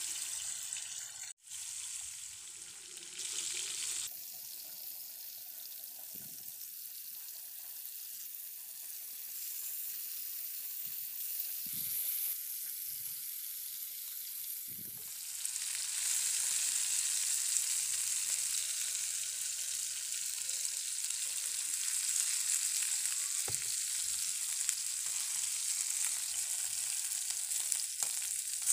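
Masala-marinated fish steaks shallow-frying in hot oil in a pan, a steady high sizzle that grows louder about halfway through, with a few soft knocks.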